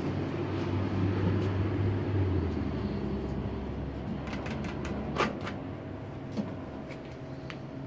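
Low, steady mechanical hum, its lowest note shifting down a little over two seconds in, with a quick run of light clicks and one sharper knock around five seconds in.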